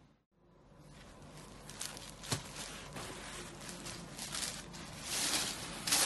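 Kanjivaram silk saree rustling as it is handled and spread out by hand, with a sharp click about two seconds in and louder swishes near the end.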